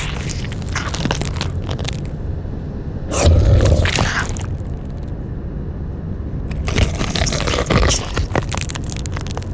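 Designed monster sound effects: crunching, scraping and cracking over a steady low rumble, with a loud heavy burst about three seconds in and a run of dense crunches from about seven seconds.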